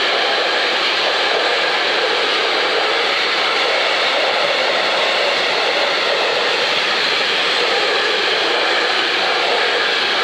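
Container freight train rolling past at a steady speed: an even, unbroken rushing noise of wagon wheels on the rails.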